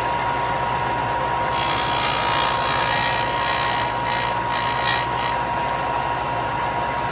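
Bench belt-and-disc sander running steadily with a constant whine, while the polymer tip of a 75-grain ELD Match bullet is pressed against the spinning disc from about a second and a half in to about five seconds, adding a rougher grinding sound. The grinding sound changes once the disc gets through the plastic tip to the bullet's metal jacket.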